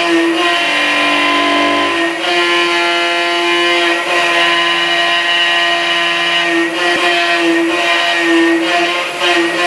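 MillStep PA1070V3 CNC milling machine's spindle and end mill cutting a metal block, a steady whine in several tones over a noisy cutting hiss. About two seconds in, a lower hum drops out and the tone shifts slightly.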